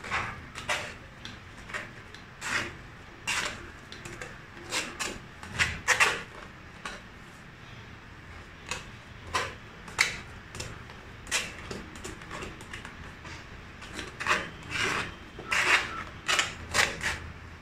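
Potato masher pressed and scraped against a stainless steel mesh strainer, forcing boiled potatoes through the mesh: a run of short, irregular scraping strokes, about one or two a second.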